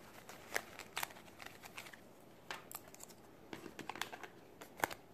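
Faint rustling of a cloth and tarot cards being handled as a card is drawn and picked up, with scattered light clicks and a sharper click near the end.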